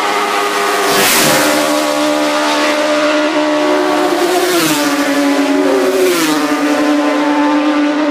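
Racing motorcycles going past flat out, one after another: the engine note jumps and drops in pitch as a bike passes about a second in, and twice more at about four and a half and six seconds, with other bikes' engines heard in between.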